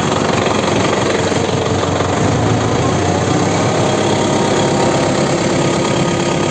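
Diesel engine of an ELEX 81A backhoe loader running steadily with the throttle opened up.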